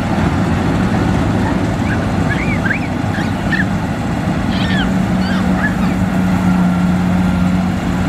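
Kubota DC70 combine harvester's diesel engine running steadily with a low hum while cutting rice. Several short chirping bird calls come through from about two to six seconds in.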